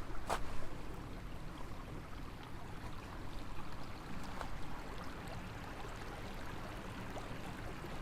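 Small forest stream running with a steady rush of water, with a single sharp click shortly after the start.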